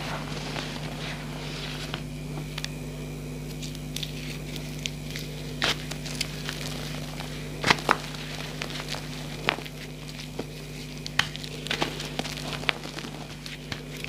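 Reformed gym chalk blocks, made with gel so they crumble messily, being squeezed and crushed by hand over loose chalk powder: soft crumbling with scattered sharp crackles, and a few louder snaps in the middle.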